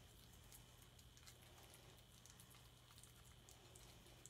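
Near silence: room tone with a faint steady hum and a few scattered faint ticks.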